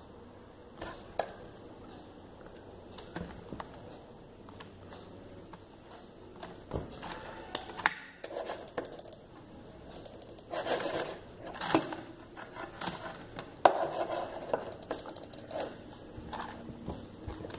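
Handling noise from a tablet, its cable and a keyboard: scattered clicks, taps and light scrapes, with a few quick runs of clicks, busiest in the second half.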